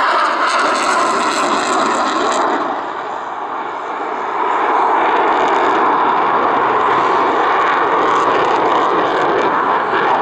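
MiG-29M2 fighter jet in display flight, its twin turbofan engines giving a loud, continuous rush of jet noise that dips about three seconds in and then swells again.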